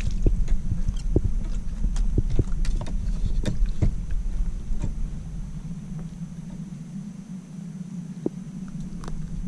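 Sounds of a kayak on the water: irregular knocks and clicks over a low rumble. The rumble eases off about halfway through.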